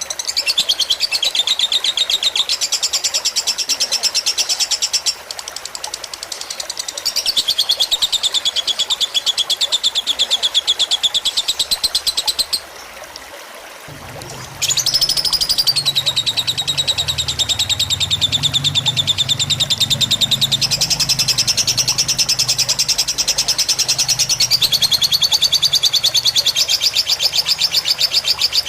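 Lovebird singing in the long, rapid, unbroken chattering runs that are typical of a 'fighter' lovebird, over steady trickling water. The bird stops for about two seconds about halfway, and a low burble joins after it.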